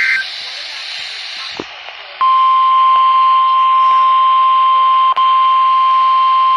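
NOAA Weather Radio emergency alert heard through a Midland WR-120EZ weather radio's speaker: the tail of the digital SAME header burst ends, a couple of seconds of radio hiss follow, then the steady 1050 Hz warning alarm tone comes on about two seconds in and holds, with a brief dropout near the end.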